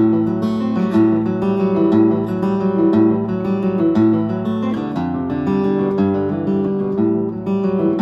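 Acoustic guitar fingerpicked, playing an instrumental tune of picked melody notes over a steady bass line; the chord changes about five seconds in.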